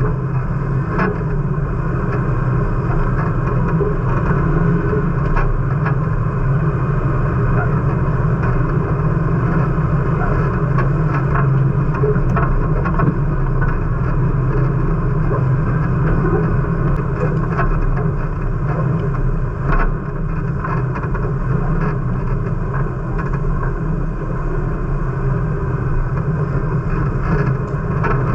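Jeep engine running steadily, with scattered short clicks and knocks.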